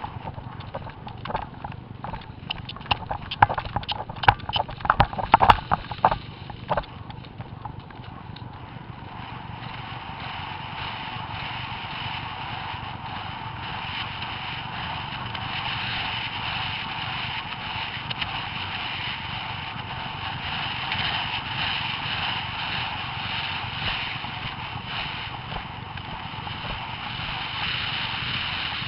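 Horse's hoofbeats picked up by an onboard camera on a cross-country ride: a run of sharp hoof strikes over the first seven seconds or so, then a steady rushing noise of wind over the microphone as the horse carries on at speed.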